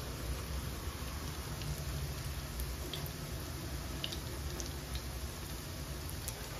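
Tofu, egg and sweet potato leaf fritters sizzling steadily in hot oil in a small frying pan, with a few scattered pops, over a low hum.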